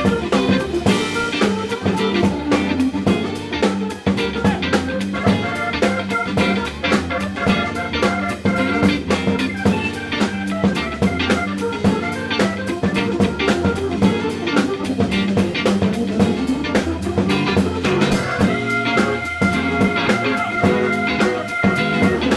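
Music with a steady drum beat and guitar.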